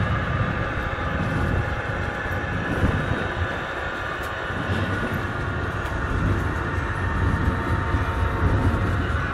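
Model freight train rolling past on the layout track: a steady running rumble of the cars' wheels on the rails.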